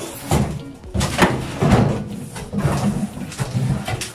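Cardboard carton of a wall-hung toilet frame being handled and pulled open: a run of irregular scrapes, rustles and dull knocks as the flaps are folded back.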